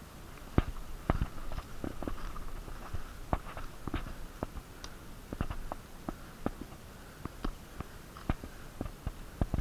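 Footsteps: irregular crunching steps and light knocks, about one or two a second.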